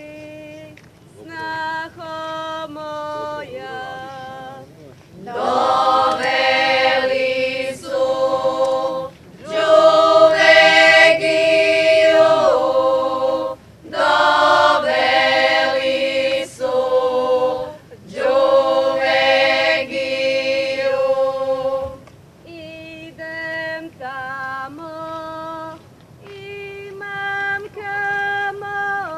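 Unaccompanied group of women singing a Croatian Posavina folk song in phrases. A lone voice sings at the start and again near the end, and the full group joins, louder, in the middle.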